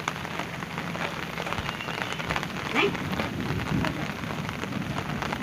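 Steady rain falling, with many distinct drop hits close by. A brief louder sound stands out just under three seconds in.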